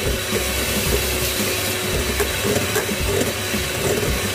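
Handheld electric mixer running steadily, its twin beaters whisking egg batter in a stainless steel bowl, a constant motor whir with a thin high whine.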